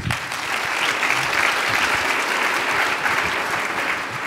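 Audience applauding, a steady crackle of many hands clapping that starts at once and begins to ease near the end.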